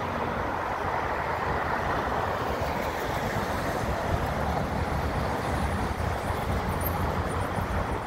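Road traffic: cars passing on wet pavement, a steady hiss of tyres over low engine rumble.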